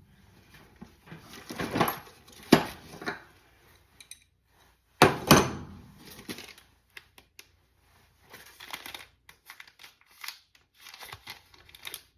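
Tools and small parts from a tool bag being handled and set down, with several sharp knocks and lighter rustling and clicking in between, like plastic packaging being handled.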